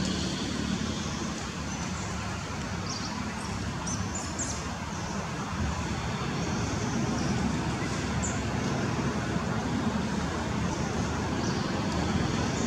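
Steady outdoor background rumble, like distant road traffic, with a few brief faint high chirps.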